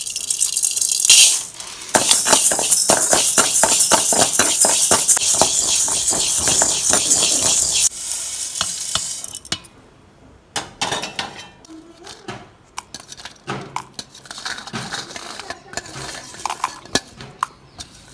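Food sizzling in a pan while a spoon stirs it, giving a loud hiss with quick scraping strokes that dies down about eight seconds in. Then come scattered clinks and knocks of utensils.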